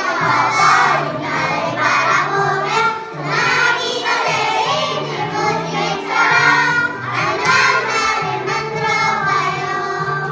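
A group of young children singing a children's song in unison over an instrumental accompaniment.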